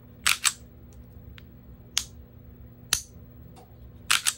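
Sharp mechanical clicks from the action of a Kimber R7 Mako 9mm striker-fired pistol being worked by hand: a quick double click near the start, single clicks about two and three seconds in, and another double click near the end.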